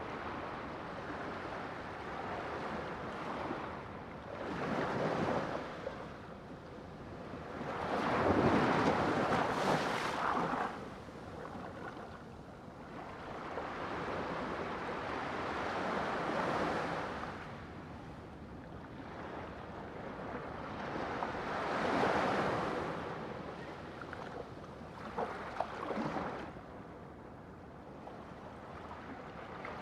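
Sea waves breaking and washing in, swelling and receding about five times, the loudest surge about eight to ten seconds in.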